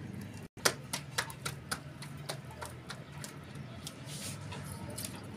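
Hands slapping a ball of roti dough flat between the palms to shape tandoori roti: a quick run of slaps about three a second in the first couple of seconds, the first one the loudest, then softer, sparser pats.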